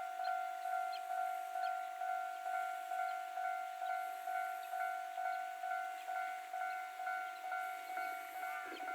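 Japanese railway level-crossing electronic warning alarm in its standard tone: a pitched ding struck over and over, about two and a half times a second. It is ringing because a train is approaching.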